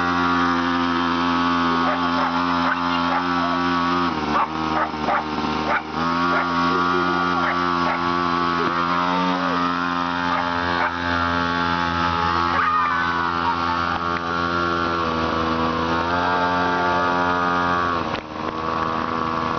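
Small engine of a mini pocket bike running at a steady pitch as it is ridden. The note dips and shifts briefly about four and six seconds in and again near the end.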